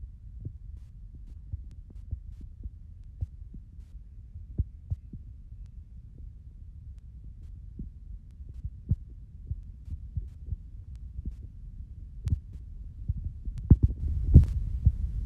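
Low rumble with soft, irregular thumps about twice a second, typical of handling noise and footfalls carried through a phone as it is walked along. A sharper knock comes near the end.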